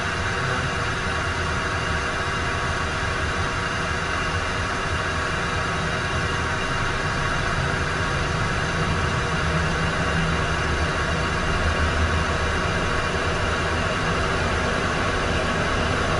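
Cessna Citation business jet's turbofan engines running, heard inside the cockpit: a steady whine and rush as the left engine spools up toward idle after light-off on a ground-power start, with the right engine already idling. The low hum grows slightly stronger in the second half.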